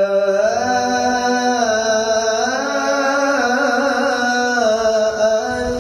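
A male qari's melodic Quran recitation (tilawah), amplified through a microphone: one long unbroken phrase with no breath, the voice rising about half a second in, then holding and ornamenting notes before stepping back down near the end.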